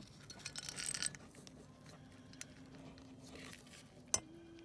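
Light metallic scraping and clicking of hand tools being handled on a cylinder head, with a cluster of scrapes about a second in and one sharp click near the end.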